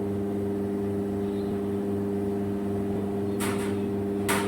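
Steady mechanical hum from a running machine, holding an even pitch, with two short sharp clicks or scrapes near the end.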